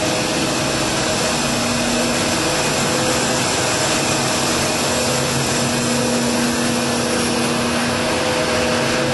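Steady, loud running noise of industrial plant machinery in a steam reforming waste-to-power facility, with a few faint steady hum tones in it.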